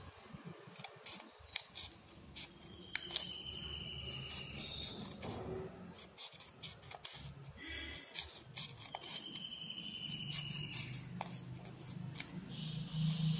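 Metal scissors snipping through a folded stack of paper: a run of quick, irregular snips.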